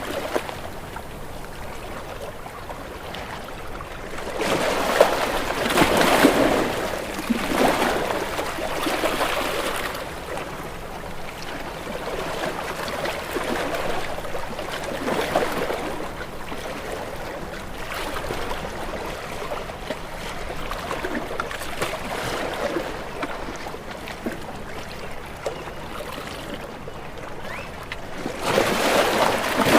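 Ocean waves breaking and washing against rocks, in repeated surges over a steady wash of water; the biggest surges come about five seconds in and again near the end.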